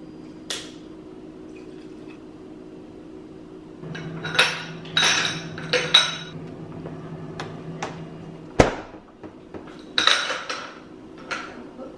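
Glassware and dishes clinking and knocking on a kitchen counter as an iced drink is put together. A low hum runs for about four seconds in the middle and stops with a sharp knock.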